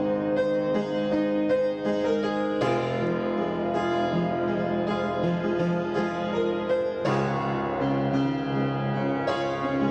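Instrumental background music led by a keyboard instrument, sustained chords with the harmony changing about two and a half seconds in and again about seven seconds in.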